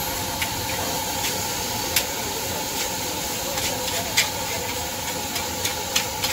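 Metal spatula scraping and clanking against a steel wok as fried rice is stir-fried, with irregular sharp strikes over a steady hiss of the gas burner and frying rice.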